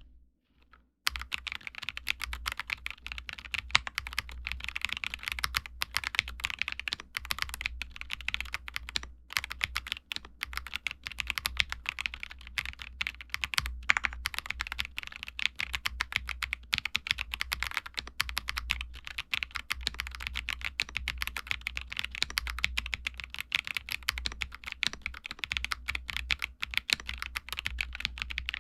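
Typing on an Akko ACR TOP 40 custom mechanical keyboard fitted with lubed Akko CS Piano switches: a fast, continuous run of keystroke clacks starting about a second in.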